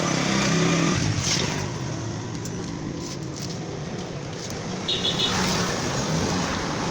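Honda CG 125's air-cooled single-cylinder four-stroke engine running, the engine whose noise is the problem being addressed. It is loudest in the first second.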